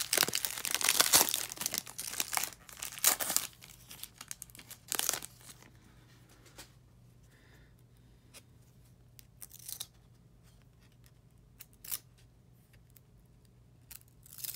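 Foil trading-card pack wrapper being torn open and crinkled for the first few seconds, with another short crinkle about five seconds in. Then a few soft, scattered clicks as the cards are slid one by one through the hands.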